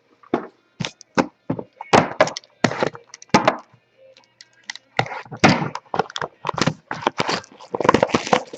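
Cardboard trading-card hobby boxes being torn open and handled: a run of short cracks, thunks and tearing rustles with brief pauses between them.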